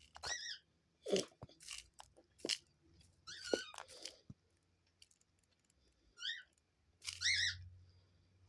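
A dove pecking and flicking through loose birdseed, with irregular sharp clicks and crunches as seeds scatter. A few short, high, warbling squeaks come in between.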